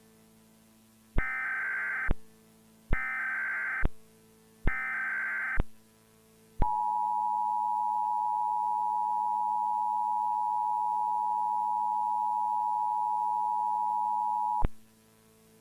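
Emergency Alert System signals: three short bursts of warbling SAME header data tones, each about a second long with a second's gap between them. Then the two-tone EAS attention signal holds steady for about eight seconds and cuts off.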